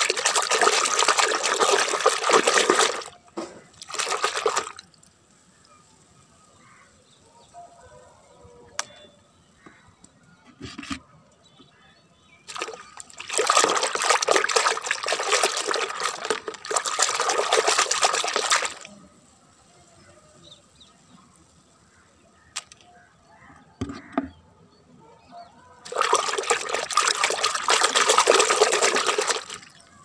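Hand splashing and sloshing water in a plastic bucket, in several bursts of a second to a few seconds each with quiet gaps between.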